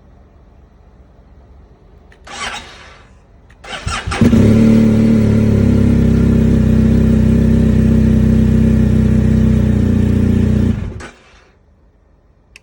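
Start attempt on a 2020 BMW R 1250 GS Adventure that has a hard-starting problem: a brief burst about two seconds in, then a loud, steady run of about seven seconds that cuts off suddenly.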